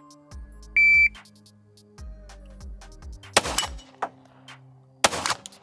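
A shot timer gives one high start beep, then a 9mm Glock pistol fires two shots about a second and a half apart.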